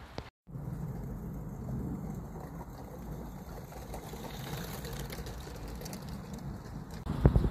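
Small live-steam garden-railway train running on the track: a steady low rumble. About seven seconds in, a sudden, louder clatter of wheels on the rails starts as the train draws near.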